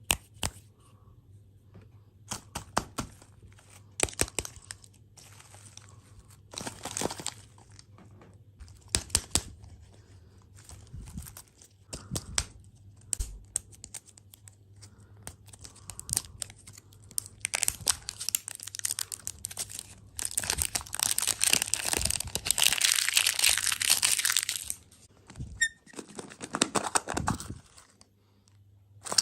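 Plastic or paper packaging being crinkled and torn open in a series of crackling handling sounds and sharp clicks, with a long stretch of dense crinkling about two-thirds of the way through.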